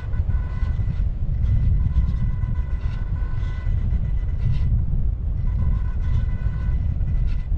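Wind buffeting the camera's microphones as an electric RC glider flies, a loud steady low rumble. Over it runs a thin steady whine from the brushless motor and propeller, which drops out for about a second past the middle and then returns.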